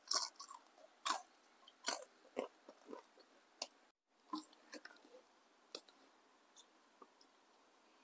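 Crisp crunching and chewing of a fried tempeh fritter, with sharp crackles about once or twice a second at first. After about four seconds the crunches thin out to a few fainter clicks.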